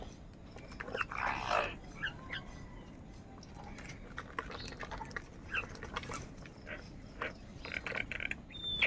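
A group of house crows cawing at intervals, the longest and loudest call about a second in, with shorter chirping calls between them and a brief high whistle near the end.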